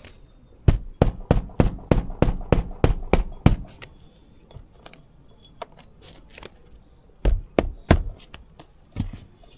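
A quick run of sharp knocks, about four a second for some three seconds, then a few more strikes near the end.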